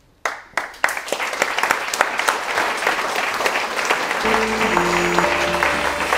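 Audience applause breaking out suddenly and continuing, joined about four seconds in by a short outro jingle of a few musical notes.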